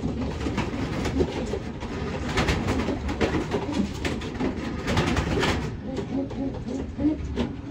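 Racing pigeons cooing in a loft, short low coos overlapping one another, with scattered rustling.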